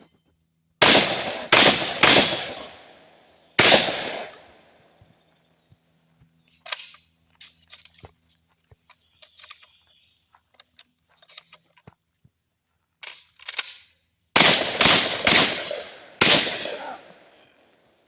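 Eight gunshots in two quick strings of four, the first string starting about a second in and the second about fourteen seconds in, with softer clicks and knocks between the strings.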